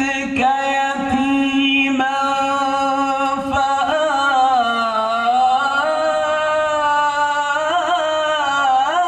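An Egyptian qari chanting Quran recitation in the melodic tajweed style, amplified through a microphone. He holds long, drawn-out notes, lets the pitch sink slowly and rise again, and adds quick ornamental turns near the end.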